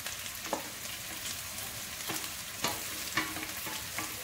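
Chopped onions and ginger-garlic sizzling as they hit hot oil in a pot. A wooden spatula scraping them off a steel plate adds a few sharp knocks.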